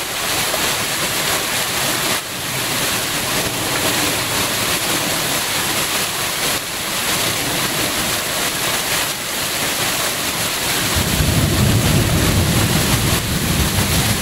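Torrential rain and nickel-sized hail pelting down in a dense, steady hiss. About eleven seconds in, a low wind rumble on the microphone joins it.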